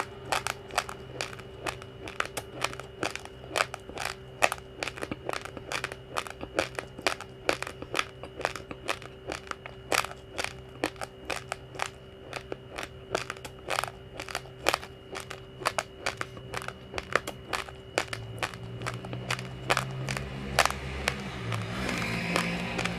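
Uncooked rice grains crunched between the teeth close to the microphone: sharp, irregular cracks several times a second. Music comes in softly near the end.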